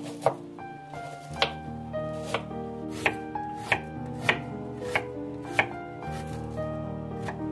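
Kitchen knife dicing a peeled onion on a wooden cutting board: about nine sharp chops, roughly every two-thirds of a second, with a longer gap near the end. Soft background music plays underneath.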